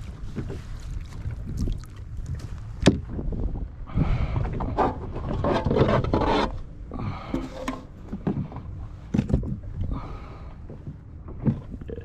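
Splashing and scraping with sharp knocks against a plastic fishing kayak, heaviest from about four to six and a half seconds in, over a steady rumble of wind on the microphone.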